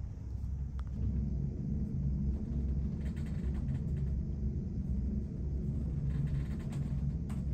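Noise inside a ship's cabin: a steady low rumble, with the grating of steel plates rubbing against each other coming and going about three seconds in and again around six seconds, and a couple of sharp clicks.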